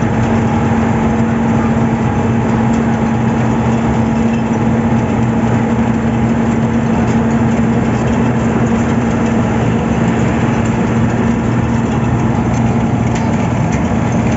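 Engine of heavy road-construction machinery running steadily at a constant speed, with a strong low hum that does not change.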